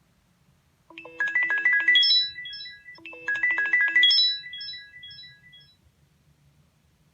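Samsung Star 2 (GT-S5260) ringtone: a short synthesized melody of quick rising notes over a held low note, played twice and trailing off.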